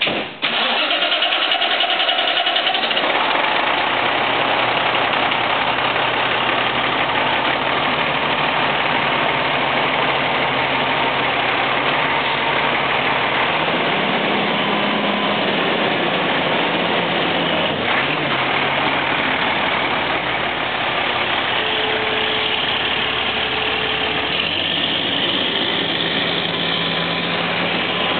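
Fire tanker truck's engine starting about half a second in, then running at idle, its speed stepping up and down a few times.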